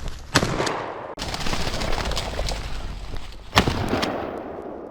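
Two shotgun shots about three seconds apart, fired at a flushed game bird, with a rustling haze between and after them.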